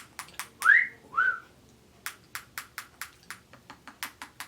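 Senegal parrot giving two short rising whistles about a second in, then a run of sharp beak or tongue clicks, about four a second, that sound like gum-chewing.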